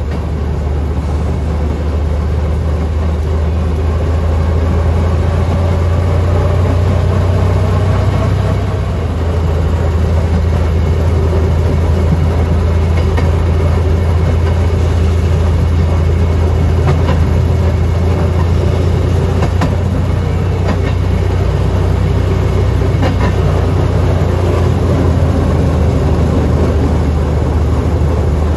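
Rail speeder (track motorcar) engine running steadily as the car travels along the rails, with a few faint clicks of the wheels over rail joints in the second half.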